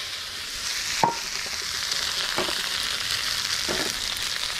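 Noodles and vegetables sizzling in a wok over a high-powered wok burner, a steady frying hiss. A sharp metal clink about a second in and a couple of softer knocks later.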